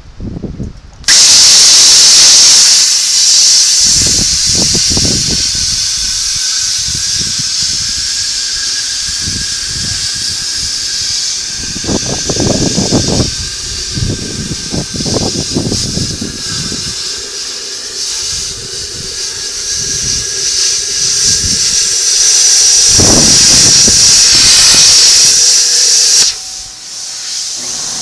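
Handheld cutoff wheel cutting through the steel shell of a scroll compressor: a loud, steady hissing grind with a whine that starts about a second in, with intermittent low rattling as the wheel bites, and a brief dip near the end.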